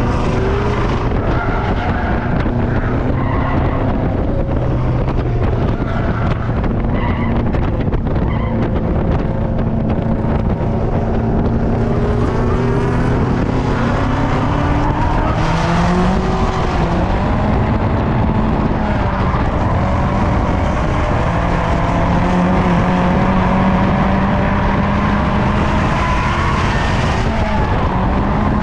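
Turbocharged Mazda Miata engine running hard through a tandem drift, its pitch rising and falling with the revs as the tires skid. Other drift cars can be heard running close by.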